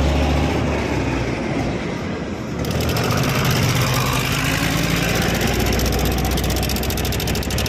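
Yamaha scooter engine idling with a fast, even metallic rattle that gets louder about three seconds in: the sign of a broken tensioner.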